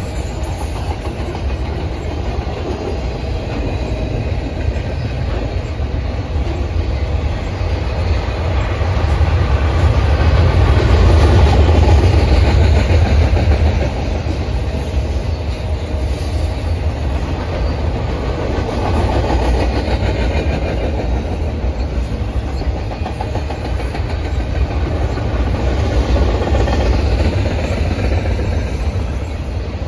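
Union Pacific double-stack intermodal container train rolling past: a steady rumble of well-car wheels on the rails, louder for a few seconds around the middle.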